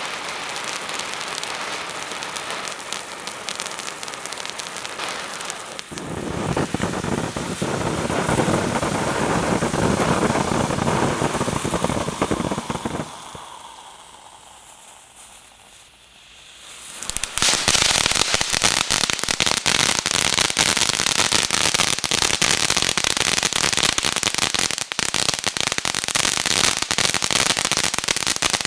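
Ground fountain fireworks spraying with a steady hiss and dense crackling. The sound dies away about 13 seconds in, and a few seconds later a louder, thickly crackling fountain flares up and keeps going.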